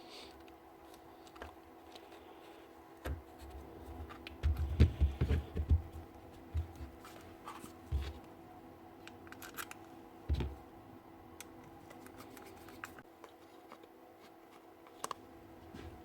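Hand-work on a cordless Milwaukee grease gun being put back together: scattered clicks and scrapes of small parts, with a run of knocks about four to six seconds in and single knocks near eight and ten seconds. A faint steady hum sits underneath.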